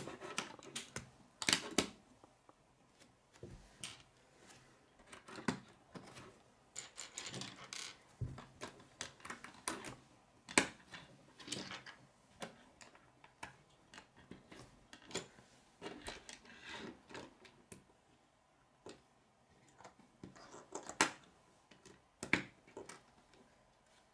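Plastic K'nex rods and connectors clicking as they are snapped together, with pieces tapped and set down on a wooden table: irregular, scattered clicks.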